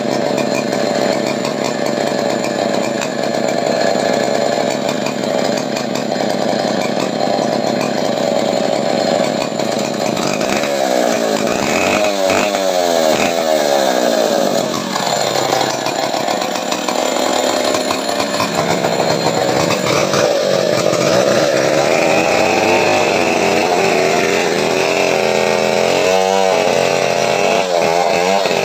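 A small engine running loudly and continuously, its tone sweeping up and down around the middle and again near the end.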